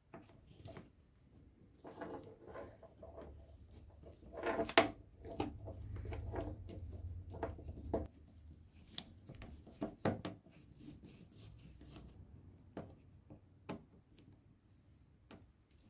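Plastic parts of a power tool's switch housing being handled and fitted together: scattered small clicks, taps and rubbing, with louder knocks about five seconds and ten seconds in.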